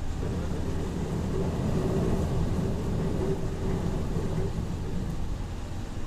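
Steady rain with a low rumble underneath, and a faint steady hum through the middle few seconds.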